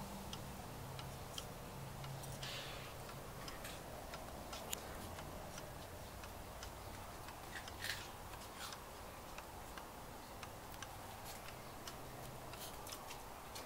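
Vintage Montgomery Ward 30-day key-wound pendulum schoolhouse wall clock ticking, its clockwork movement running.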